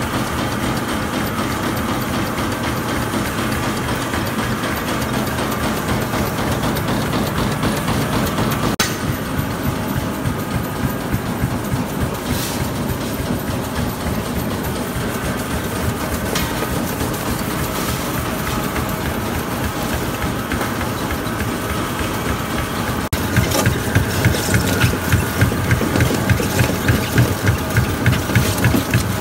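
Tyre-recycling machinery running steadily: conveyor belts carrying rubber crumb and the tyre grinding mill. About 23 s in it changes to a louder, rhythmic pulsing, about two beats a second, where the ridged steel grinding roller is turning.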